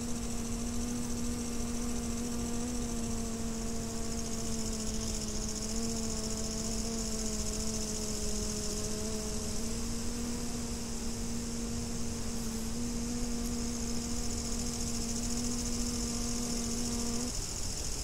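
A bee buzzing in flight, a steady hum that wavers a little in pitch and cuts off about a second before the end. A steady high chirring of grasshoppers and a low rumble of wind run underneath.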